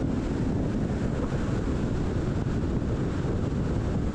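Steady road and wind noise from a car driving at speed, a constant low rumble with a hiss above it.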